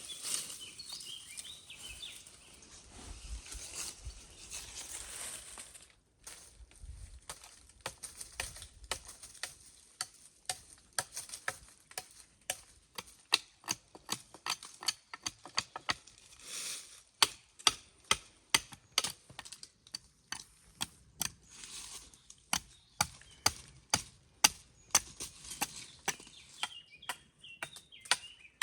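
An axe or hatchet chopping dry wood, repeated sharp chops about one to two a second that start about ten seconds in and grow louder. Before them there is some rustling and a few low thuds.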